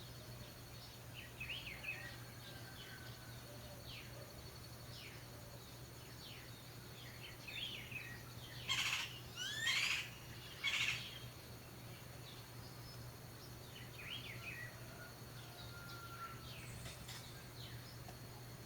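Orioles (calandrias) calling: scattered short chirps and whistles, with a burst of louder calls about nine to eleven seconds in.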